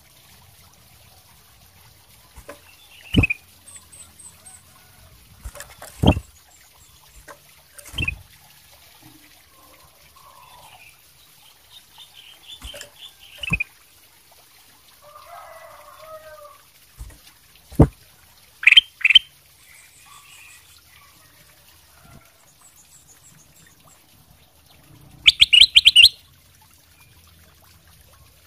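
Ruby-throated bulbul (kutilang emas) calling: short, sharp notes every few seconds, a quick pair of notes, and a fast chattering run of repeated notes near the end.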